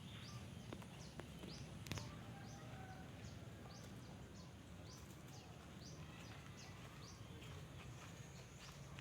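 Faint, short high bird chirps repeating about once or twice a second over a steady low hum, with a single click about two seconds in.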